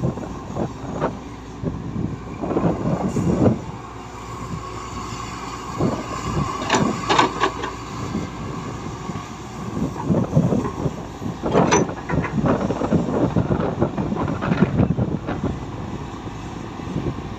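Heavy earthmoving machinery working: a diesel engine runs steadily under a low rumble, with repeated irregular clanks and knocks of metal and material.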